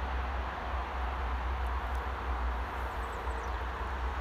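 Wind buffeting the microphone in an uneven low rumble over a steady outdoor hiss, with a few faint high bird chirps about three seconds in.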